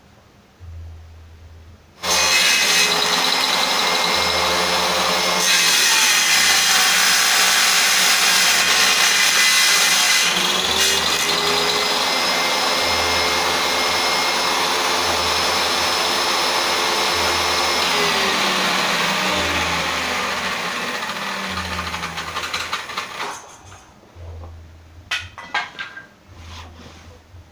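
Homemade table saw starting abruptly about two seconds in and running loud, its motor whine and blade cutting noise together. The whine shifts in pitch midway, then winds down and stops near the end, followed by a few knocks.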